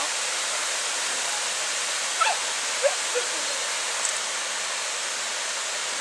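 Waterfall spilling over rock ledges into a river, a steady, even rush of water. A few short pitched sounds stand out above it between about two and three seconds in.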